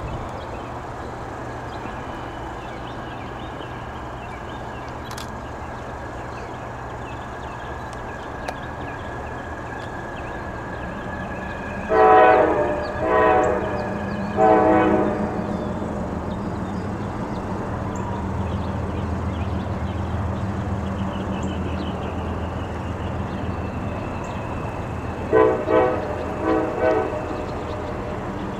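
CSX GE freight locomotive's Nathan five-chime air horn sounding three blasts, then about ten seconds later a quick run of four short blasts, over the low rumble of the approaching diesel locomotive that grows louder in the second half.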